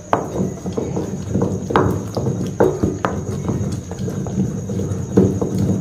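Granite hand grinder (aattukal): the cylindrical grinding stone is turned round in the stone bowl, a continuous rumble of stone on stone broken by irregular sharp knocks, grinding sautéed spinach, tomato and tamarind into chutney.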